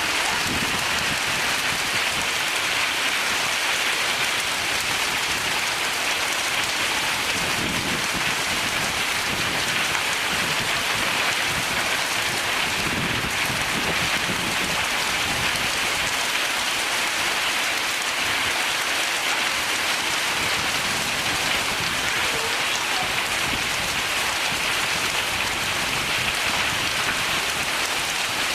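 Heavy storm rain pouring down steadily: a dense, even hiss with no letup.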